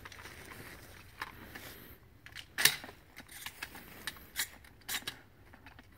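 Sharp mechanical clicks and light clatter of firearm and gear handling, with one louder click about two and a half seconds in and a few softer ones later.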